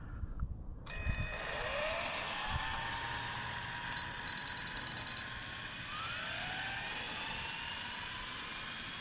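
Stretched Arrma Typhon brushless electric RC car pulling away on 6S power, its motor whine rising in pitch twice over a steady rushing noise. A rapid string of short electronic beeps sounds a little after four seconds in.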